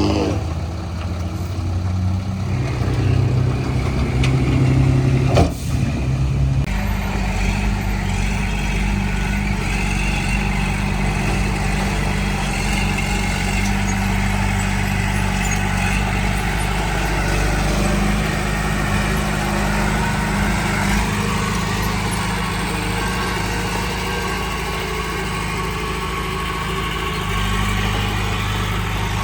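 Heavy diesel engine of construction machinery running steadily. A sharp knock comes about five seconds in, and soon after the engine settles into a fuller, lower, even drone.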